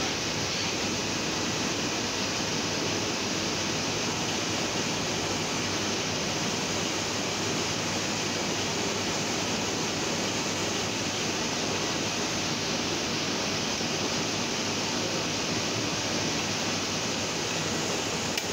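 Heidelberg GTO four-colour offset printing press running at a steady pace, a dense even machine clatter and hiss that stops abruptly near the end.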